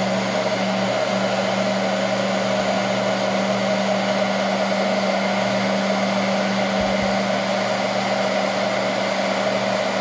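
Hand-held hair dryer running steadily, a continuous rush of air over a low hum, blowing hot air to soften the plastic clips holding a microwave oven's door interlock switch.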